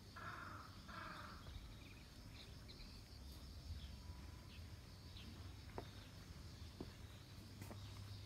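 Faint outdoor garden ambience: a steady high insect drone, with two short harsh sounds about a second apart near the start and a few soft clicks later on.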